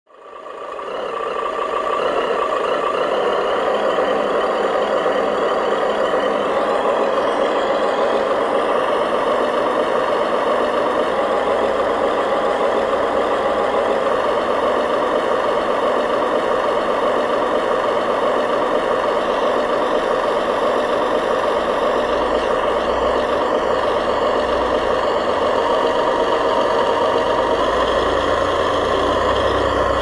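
Heavy diesel truck engine sound running steadily, as simulated for a remote-control dump truck. It fades in over the first couple of seconds, and a deeper rumble grows stronger in the last several seconds.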